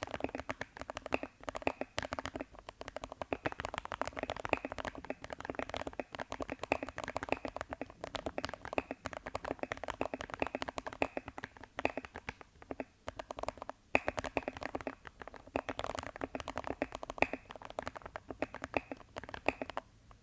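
Keychron K6 aluminium mechanical keyboard with lubed Gateron G Brown switches and foam-filled plate, PCB and case, typed on quickly: a dense run of keystroke clacks broken by a few short pauses.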